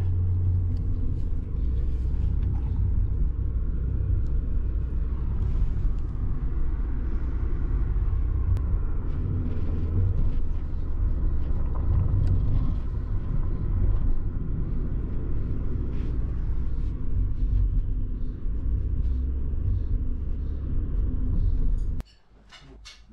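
Steady low rumble of car cabin noise, heard from inside the car. It stops abruptly near the end, giving way to a much quieter room.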